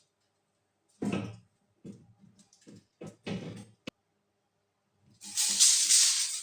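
A few knocks and scrapes of metal parts being handled, then about five seconds in a welding arc strikes and runs with a steady crackling hiss.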